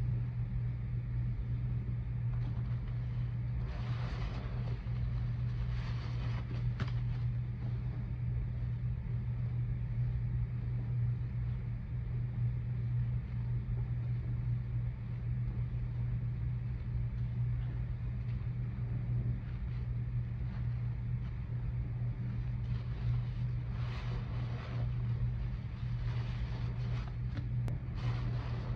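Sponges soaked in soapy suds squeezed by gloved hands, giving a few soft wet squelches a few seconds in and again near the end. Beneath them runs a steady low hum, the loudest sound throughout.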